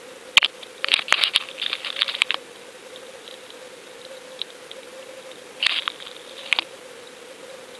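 Underwater audio from a submerged camera against a shell-covered piling: clusters of sharp crackling clicks over a steady faint hum. A single click comes about half a second in, a dense crackle follows from about one to two and a half seconds, and another comes near six seconds.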